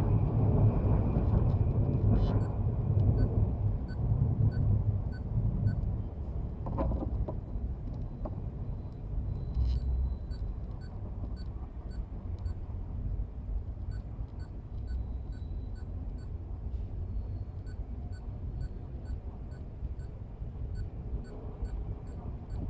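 Keys of an HP 19BII calculator pressed one after another during its keyboard test: light clicks about two a second, in runs with short pauses. Under them runs a low rumble, louder for the first six seconds.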